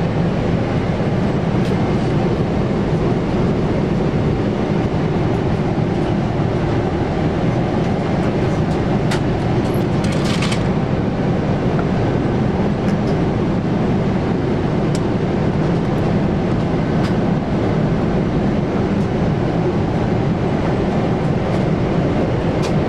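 Steady in-flight cabin noise of a Boeing 747-8, a constant low rumble of airflow and engines. A few light clicks and knocks come from the seat's tray table being unfolded, with a short cluster of them about ten seconds in.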